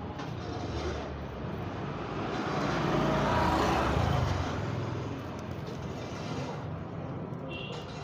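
A road vehicle passing, its engine and road noise swelling to a peak about halfway through, then fading.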